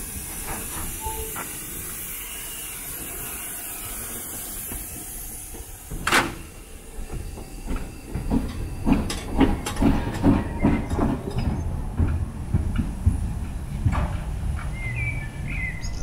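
Narrow-gauge steam tank locomotive 99 2322-8 (DR class 99.32) standing with a steady hiss of steam. About six seconds in there is one sharp, loud release, then a run of low chuffs and metallic clanks at roughly two a second as the engine's driving gear works.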